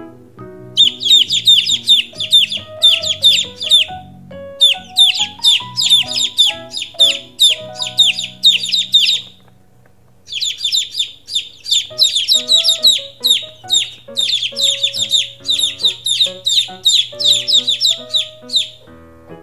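A group of baby chicks peeping: high, downward-sliding chirps, several a second, in long runs with a few brief pauses, over quiet background music.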